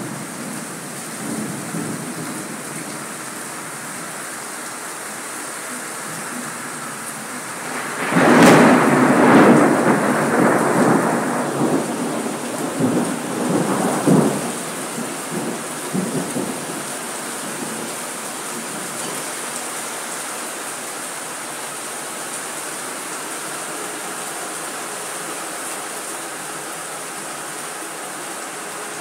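Steady rain falling, with a sudden thunderclap about eight seconds in that rolls on in several rumbling swells for some eight seconds before dying away under the rain.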